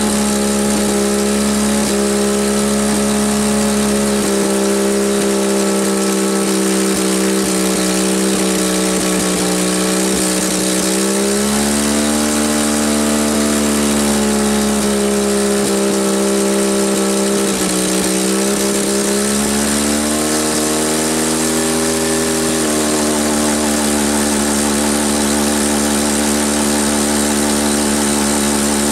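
Cat D4C bulldozer's diesel engine running steadily. Its speed picks up about eleven seconds in, drops back around seventeen seconds, and rises again a little after twenty seconds.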